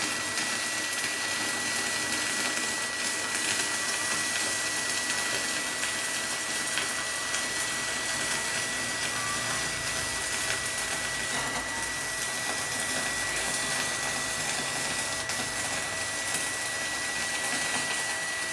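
Stick-welding arc running a 3.2 mm electrode along thin square steel tubing, fed by a Wintech WIN200 mini inverter welder at its maximum current: a steady, unbroken crackle and hiss. A faint steady high tone runs underneath.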